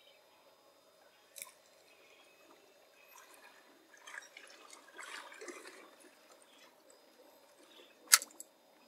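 Faint water lapping and dripping against an aluminium boat hull, with a few light knocks and a sharp click about eight seconds in, the loudest sound.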